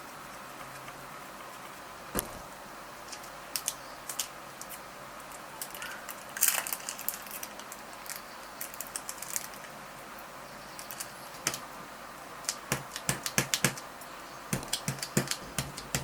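Irregular light clicks and taps, a few scattered at first and coming in quick clusters in the last few seconds.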